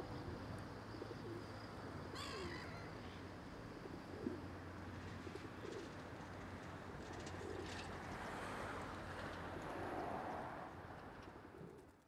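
Birds calling over a steady outdoor background hum, with a short wavering call about two seconds in; the sound fades out at the very end.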